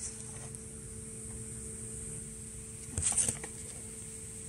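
Steady machinery hum with a faint high whine, and a brief clatter of clicks and rustling about three seconds in.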